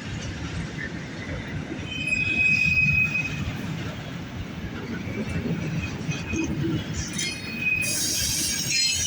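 Freight train cars rolling past with a steady rumble of wheels on rail and high-pitched wheel squeal, which comes in twice and grows brighter near the end.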